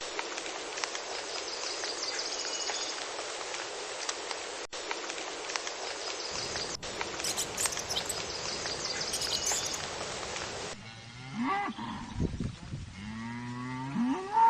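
A steady hiss of background noise, then a cow mooing twice near the end, the second moo long and rising in pitch as it ends.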